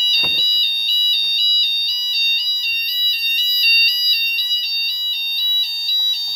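Electronic fire alarm sounder going off, an alternating two-tone warble that switches rapidly and evenly between a high and a low pitch.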